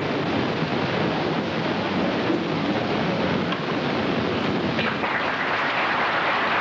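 Audience applauding steadily, a dense even clatter.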